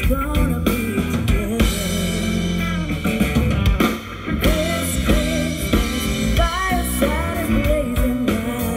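Live band playing a song: a woman sings into a microphone over electric guitars and a drum kit.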